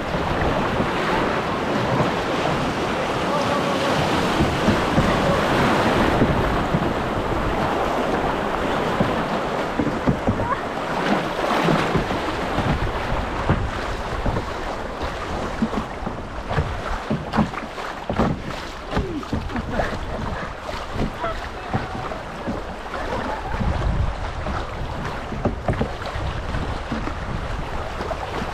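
Rushing river water from a rapid close around a canoe, with wind buffeting the microphone. The white-water noise is fullest in the first half and eases later.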